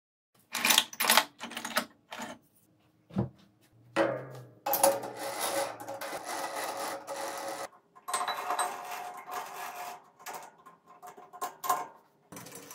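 Metal workshop handling sounds: several sharp metallic clanks in the first two seconds, then long stretches of metal scraping and rubbing with a faint ringing. Near the end the lathe's three-jaw chuck is tightened onto a round bar with a chuck key.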